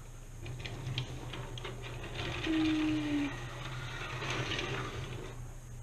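Light clicking and rustling of Lego plastic parts being handled on a wooden table, over a steady low hum, with a brief low hum-like tone a little before halfway.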